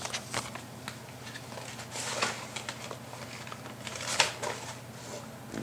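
Soft scattered clicks and rustles of handling, a few louder ones about two seconds in and again past four seconds, over a steady low hum.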